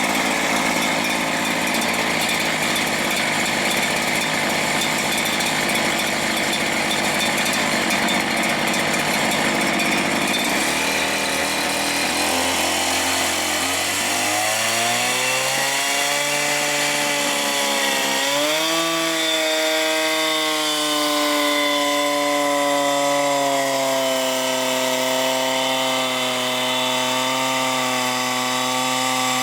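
Two-stroke chainsaw engine running at high revs, driving the dyno's sprocket and disc-brake wheel. About ten seconds in, its revs drop as the brake loads it down. The pitch dips once more and then holds steady at a lower speed under load.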